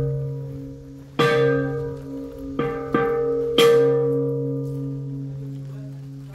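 Slow music of single plucked or struck notes that ring out and die away, a few seconds apart with one quick pair in the middle, over a steady low hum.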